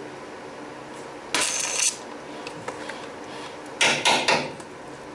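MIG welder firing in short bursts of crackling hiss: one of about half a second, then three quick ones a couple of seconds later. Such stop-start bursts fit a welder whose wire feed is running out.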